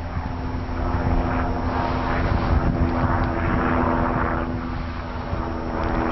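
Helicopter flying overhead: a steady engine-and-rotor hum under a rushing noise that swells and fades.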